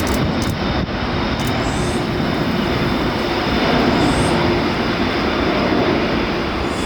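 Jet airliner engines at an airport runway: a loud, steady wash of noise with a faint low hum.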